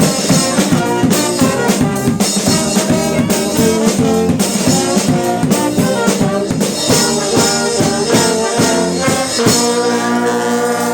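Fanfare brass band playing live, horns over a steady drum beat, then breaking off the beat about nine and a half seconds in to hold a long final chord.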